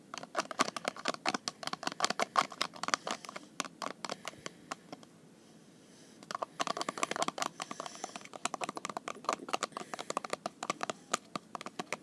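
Rapid scraping and clicking of a utensil stirring salt into conditioner in a container, in two spells with a pause of about two seconds in the middle.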